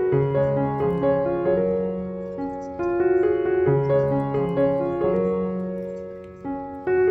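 Piano music: a melody of single notes over held low chords, played at an even pace, with a short lull just before the end.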